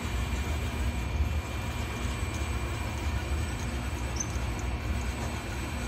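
Syil X7 CNC mill running: a steady low hum with hiss and faint, thin high-pitched whines over it.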